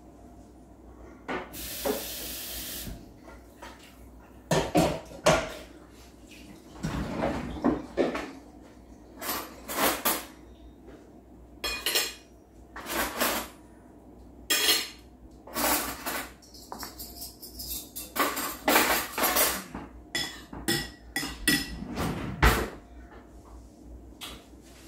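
Dishes and cutlery being handled: a string of separate clinks and knocks of a saucepan, ceramic bowls and metal spoons, with a short hiss about two seconds in.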